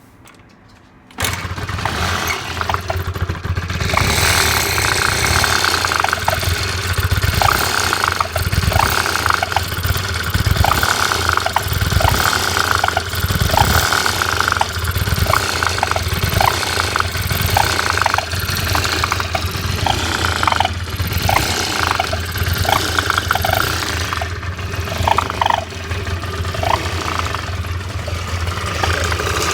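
Scooter engine starting about a second in and then running steadily, with short sharp noises recurring irregularly over the engine, about once or twice a second. This is the unexplained noise whose source the owner cannot locate.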